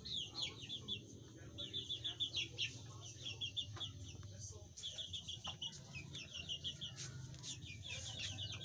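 Chickens clucking in repeated runs of short, quick notes, with a few light knocks.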